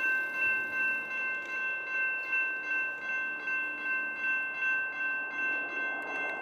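Railroad grade crossing warning bell ringing steadily, a little under two rings a second, with an even, unchanging rhythm.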